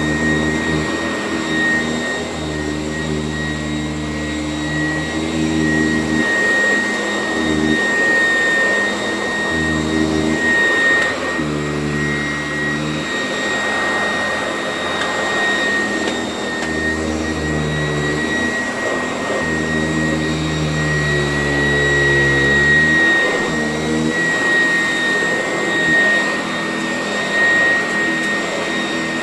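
Sanitaire S675 upright vacuum cleaner running steadily with a high motor whine. Its low hum shifts in pitch several times as the load on the motor changes.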